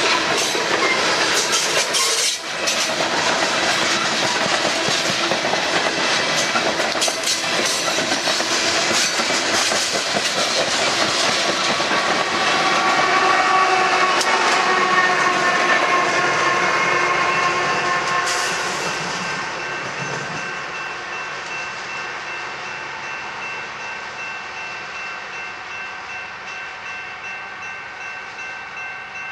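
A train passing, its wheels clicking over the rail joints, with the locomotive horn sounding in the middle. The train noise fades over the last third, leaving a steady ringing.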